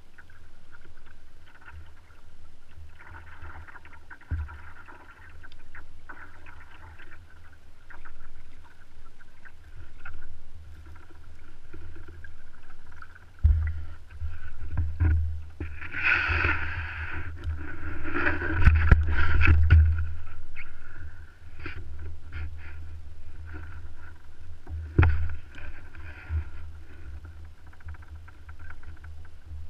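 Wind rumbling on a camera microphone over water lapping around a kayak while a sturgeon is reeled in. Midway there is a louder stretch of splashing and sharp knocks against the hull as the fish is brought alongside and aboard, and one more knock follows a few seconds later.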